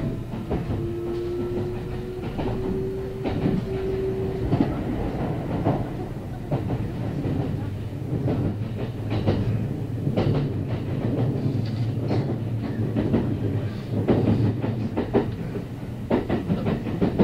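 Kintetsu 9030-series electric train running, heard from inside the passenger car: a steady rumble with wheels clicking irregularly over rail joints. A whine rises slightly over the first few seconds and then fades.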